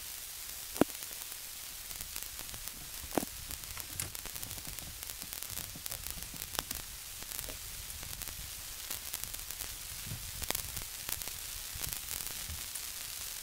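Steady wind hiss and rumble on the microphone, with scattered sharp clicks, the loudest about a second in and again about three seconds in. No outboard engine is heard running.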